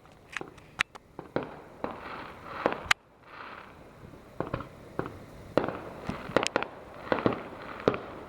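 Fireworks going off around a neighbourhood: many sharp bangs and pops at irregular intervals, often several a second, some much louder than others.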